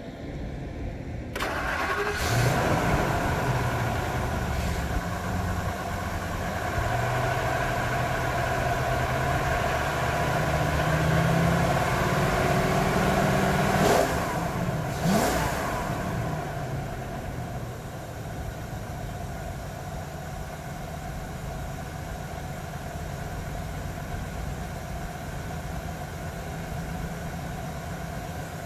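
Ford 6.8-litre Triton V10 gas engine starting about a second in, then running at a fast idle that climbs slowly in pitch. About halfway it drops back, with a short burst of revving, and settles into a steady idle.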